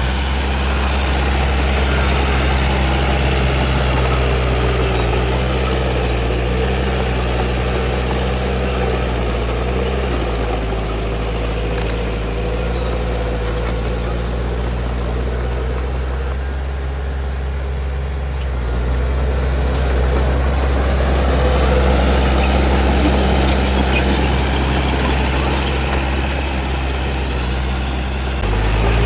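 Heavy diesel earthmoving machinery engine running steadily, easing off for a stretch in the middle and picking up again about two-thirds of the way through and once more just before the end.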